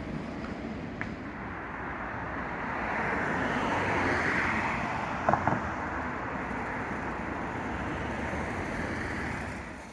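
Street traffic passing close by: a swell of road noise that peaks about four seconds in, holds, and falls away near the end, with a couple of sharp clacks about five seconds in.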